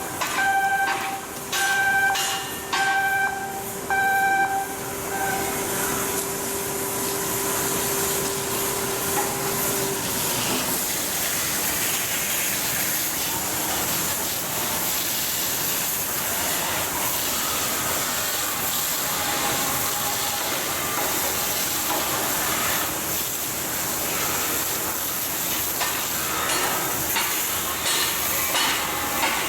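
A loud, steady hiss of air or machinery, with a series of short electronic beeps, about one a second, over the first few seconds, and a steady tone that stops about ten seconds in.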